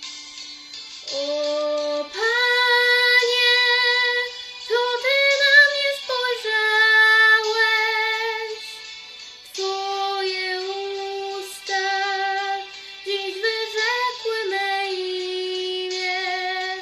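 A girl singing solo, a slow melody in phrases of long held notes with a slight vibrato and short pauses between them.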